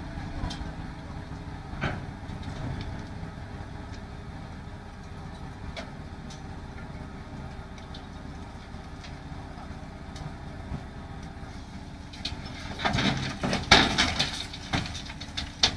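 A crane engine runs steadily while an overturned truck crane is hoisted off its side. About three seconds before the end there is a burst of loud knocking and scraping as the machine shifts and tips up.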